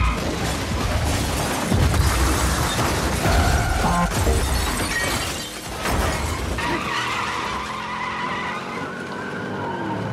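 Action-film car chase sound: engines running, tyres skidding, and metal crashing as vehicles flip and smash into each other, with several heavy impacts in the first half.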